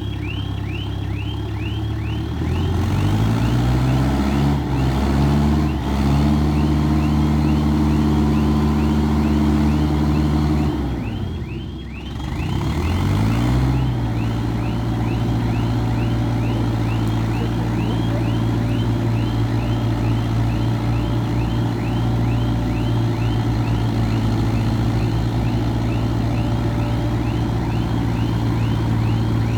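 A motor vehicle's engine revs up and holds high, drops away about eleven seconds in, then revs up again and runs steadily. A high, fast repeated chirp, about two a second, sounds throughout.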